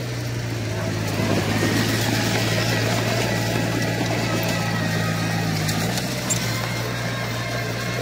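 Diesel engine of a Komatsu crawler bulldozer running steadily. It works harder from about a second in, then eases back about six seconds in.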